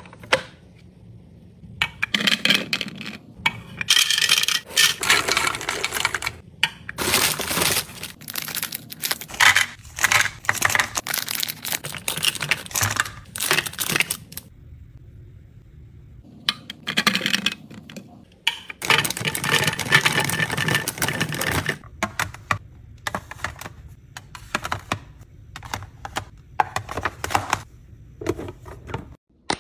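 Dry snacks and gummy candies poured into the hard plastic compartments of a snack serving tray, clattering and rattling in long runs of small hits, with a pause of about two seconds in the middle and scattered clicks and taps near the end.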